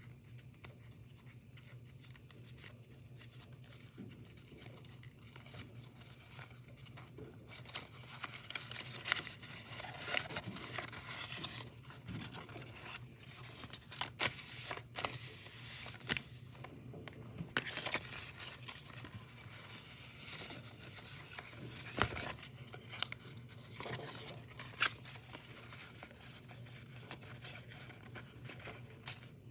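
Creased origami paper being unfolded and handled: irregular crinkling and rustling, with two louder stretches of rustle, one about a third of the way in and one about three quarters through.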